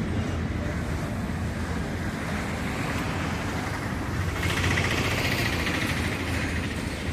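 Stick-welding arc crackling and hissing, strongest for about two seconds from about four seconds in, over a steady low electrical hum.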